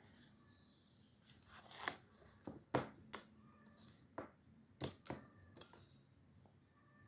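Desk handling sounds: a short paper-like rustle, then about seven sharp clicks and taps of stationery being picked up and set down on the desk, the loudest about three seconds in.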